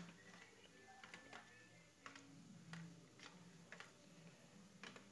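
Faint clicking of a steel spoon against a stainless steel bowl, about two light taps a second, as roasted gram powder is stirred into water.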